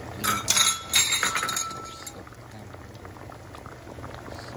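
Several sharp clinks of kitchenware with a brief ringing tone in the first two seconds, over the steady bubbling of balbacua, a beef trotter stew, simmering in an enamelled pot.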